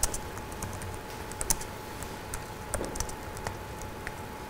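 Typing on a computer keyboard: irregular keystrokes, a few of them clearly louder than the rest.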